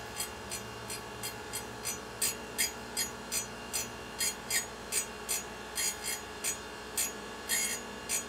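Surface grinder running with a steady hum, its abrasive wheel grinding slots into hardened steel pins in short rasping bursts, about two or three a second.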